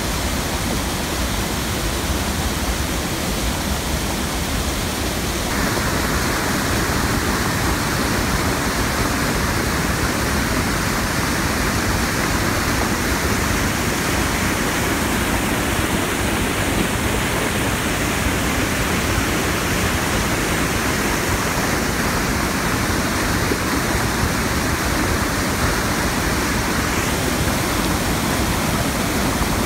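Floodwater pouring over a mill dam's spillway into churning water below: a steady, loud rush of falling water that gets a little louder and brighter about five seconds in.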